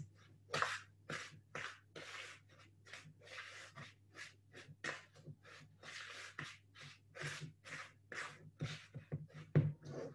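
Faint rhythmic scraping of a utensil stirring butter and brown sugar into a stiff paste in a plastic bowl, about two to three strokes a second.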